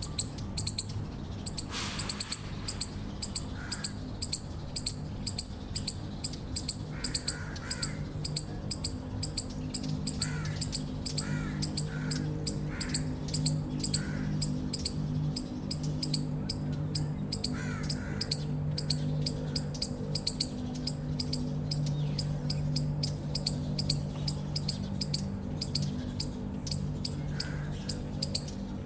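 Eastern chipmunk chirping: a long run of high, sharp chips at an even pace of about three a second, over a low steady hum.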